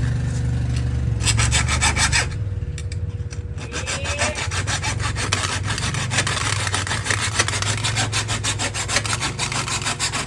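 A spray paint can being cut open with fast back-and-forth sawing strokes. The strokes start about a second in, stop briefly, then run on without a break, over a steady low hum.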